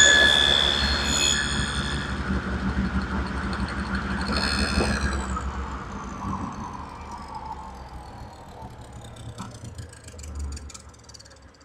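Table saw with a dado stack winding down after being switched off. The motor hum fades and its whine falls steadily in pitch over several seconds as the blades coast to a stop, with a few light knocks near the end.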